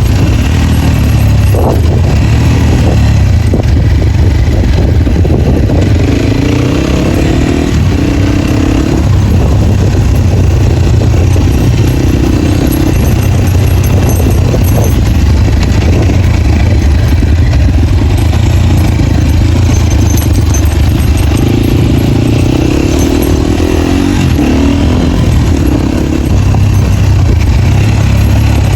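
Off-road motorcycle being ridden with its dB killer removed, the open exhaust loud and unmuffled. The revs rise and fall several times through the stretch.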